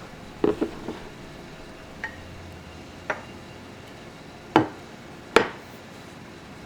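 Dishes and cutlery clinking and knocking as they are handled: a few sharp clinks about half a second in, two small ones a second apart, then the two loudest knocks near the end.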